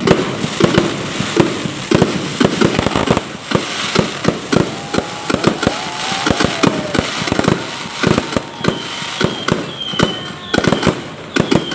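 Aerial fireworks bursting in rapid succession: many sharp bangs, several a second, over continuous crackling, with a few whistling tones in the middle and later on.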